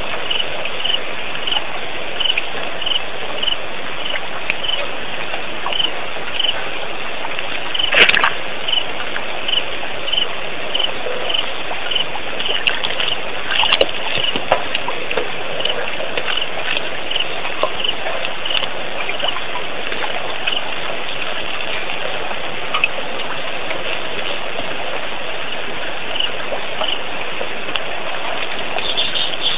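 Night ambience at a waterhole: a steady noisy background with a short high chirp repeating about every two-thirds of a second, and one sharp crack about eight seconds in.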